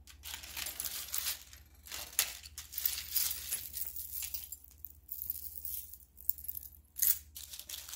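A heap of costume jewelry (metal chains, bracelets and beads) pushed across a marble countertop, jingling and clinking in a string of short rattles that die down near the end.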